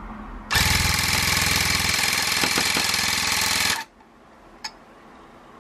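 Electric tufting gun, the one ordered from America, running in one burst of about three seconds as it punches yarn into the backing cloth: a loud, fast, even buzz of the needle mechanism that starts about half a second in and cuts off suddenly.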